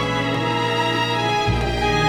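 Background music: a slow, sustained instrumental track with bowed strings over a held bass note that changes about one and a half seconds in.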